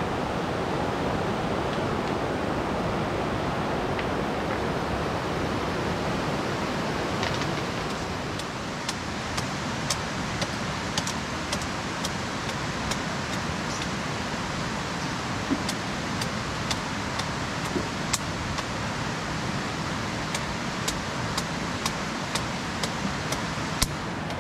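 A swollen river rushing over rocks, steady throughout. From about eight seconds in, a string of sharp knocks, one or two a second, as a machete hacks at a wet log.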